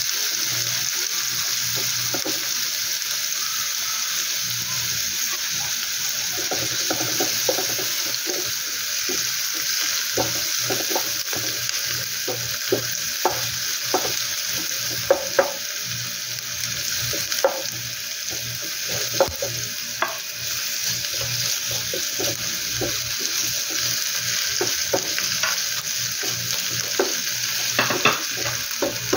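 Chopped red onion and garlic sizzling steadily in hot oil in a frying pan, stirred with a wooden spatula that scrapes and knocks against the pan again and again.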